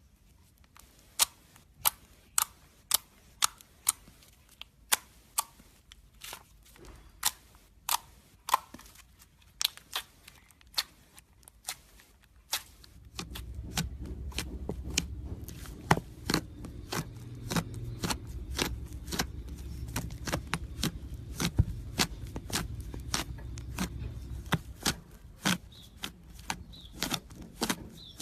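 Slime being handled, giving a long run of sharp clicks and pops, about one to two a second. About halfway through a low, rumbly squishing noise joins them and fades out near the end.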